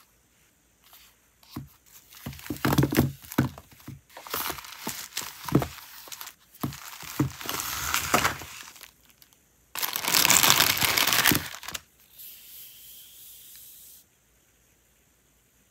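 Close-up crinkling and crackling of the paper wrapping being torn open on a bundle of washi tape rolls, in a run of irregular rustles and snaps. About ten seconds in comes a louder, continuous ripping sound lasting a couple of seconds as washi tape is peeled off its roll, followed by a fainter hiss that stops near the end.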